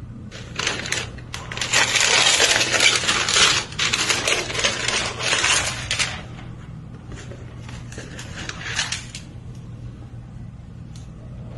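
Packaging and small metal jewellery pieces being handled during an unboxing: dense crinkling with clinking. It comes in a long spell, then a shorter one about seven seconds in.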